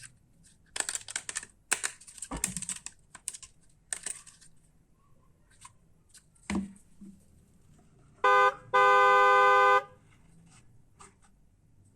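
Light clicks and rattles of plastic toy parts being handled, then a toy truck's electronic horn sounds twice: a short honk and then a longer one of about a second. The horn is the loudest sound.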